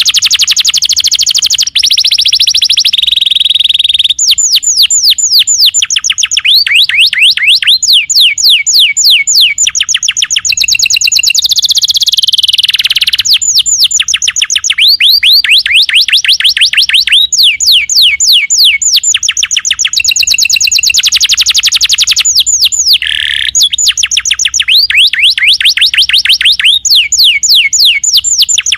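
Domestic canary singing a long, continuous, loud song: rapid high-pitched trills and rolls of repeated falling notes, switching to a new phrase every second or two without pause.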